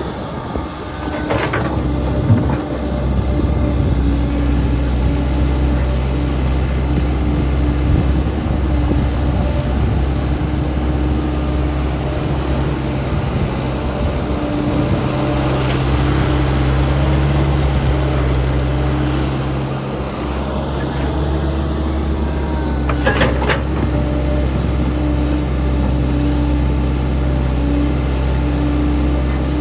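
Engine of a water-well drilling rig running steadily under load, with a couple of brief metallic knocks, one near the start and one about two-thirds through.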